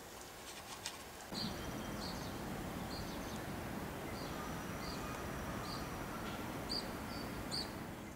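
A bird chirping repeatedly outdoors, short high notes about every half second, over steady background noise that comes in about a second in. A few sharp clicks come just before.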